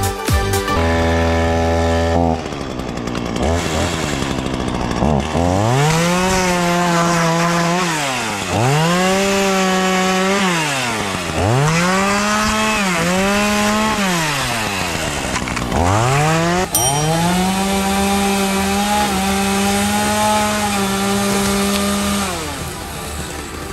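Gas chainsaw cutting palm fronds: the engine revs up, holds at full throttle through the cut and drops back, four times over, the last cut the longest.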